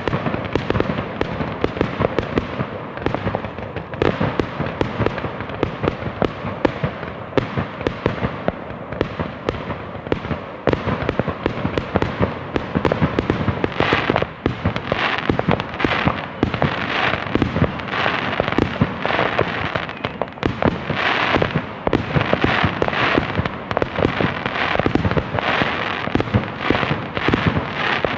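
Fireworks going off without a break: many sharp bangs overlapping with crackling. From about halfway through, bright crackling bursts come roughly once a second.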